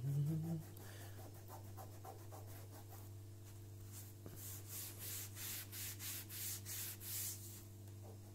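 A wet scouring sponge scrubbed back and forth against the front edge of a Technics SL-1210MK2 turntable to soak off old stickers: faint rhythmic rubbing strokes, about two a second, through the second half. A brief voiced hum at the very start is the loudest sound.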